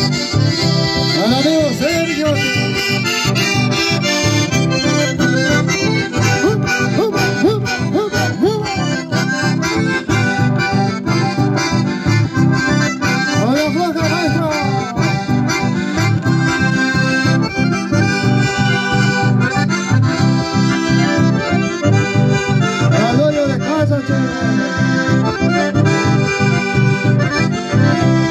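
Live folk music: two accordions, one of them a button accordion, play a lively tune over a strummed acoustic guitar, with a steady beat.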